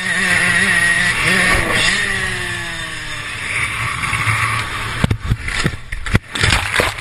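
Dirt bike engine revving hard over a steady rushing noise, its pitch then sliding down as the revs fall away. About five seconds in, a run of sharp knocks and thumps.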